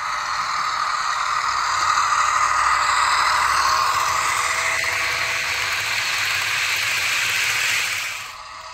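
Model train of coal hopper cars running along the layout track: a steady rolling rattle of wheels on rail that builds over the first two seconds and cuts off suddenly near the end.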